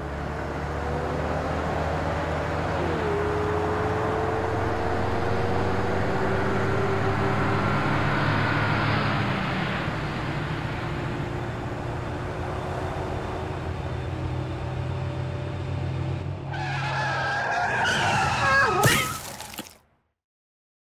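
Road traffic: a steady drone of car engines and tyres with slow pitch glides as vehicles pass. About 17 seconds in, a car brakes hard with a long wavering tyre screech, which cuts off abruptly into silence.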